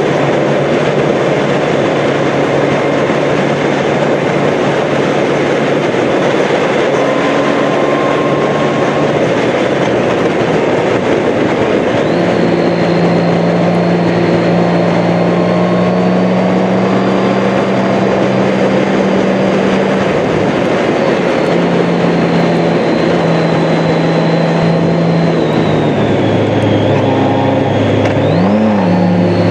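Wind rush and road noise on a moving Honda Gold Wing GL1800 motorcycle, under the steady drone of its flat-six engine, whose pitch steps up and down a few times as the speed changes through the curves. A thin high whine runs along above it.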